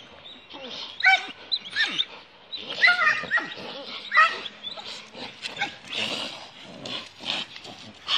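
Several dogs scuffling, with a string of short high yelps and rough snarling bursts.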